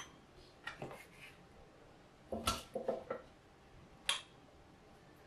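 Basting brush knocking and clinking against a glass jar of sauce: a few light taps, a cluster of knocks with a brief ring in the middle, and one sharp click about four seconds in.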